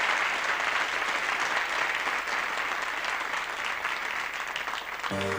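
Television studio audience applauding steadily. Near the end the instrumental introduction of the song begins, with sustained musical notes.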